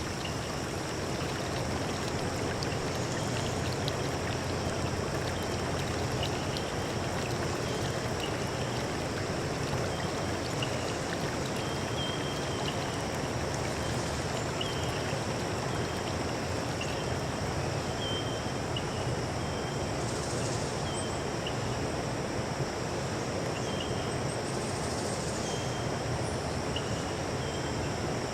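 A stream running steadily, with short high chirps repeating now and then and a steady high-pitched drone over it.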